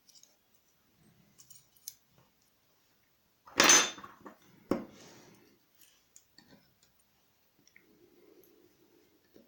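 Small metal clicks and clinks from handling a door lock cylinder's pins and parts, with one louder metallic clatter a little over a third of the way in and a sharp click about a second later.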